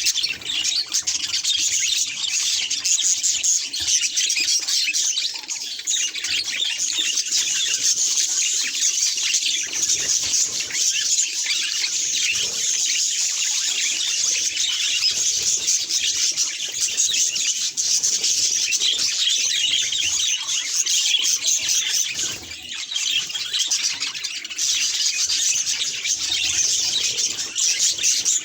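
Budgerigars chattering and warbling: a dense, continuous stream of quick high chirps and squawks, with a few short lulls.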